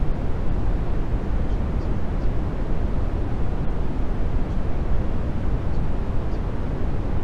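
Steady, even rushing noise, deepest in the low end and thinning toward the top, with no pitch and no swells: a masking noise bed of the kind laid over subliminal affirmations to hide them.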